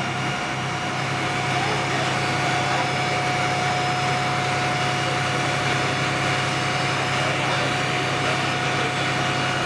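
Fire truck engine running steadily at a constant speed, with a thin steady whine above the drone, as the aerial ladder works a water stream.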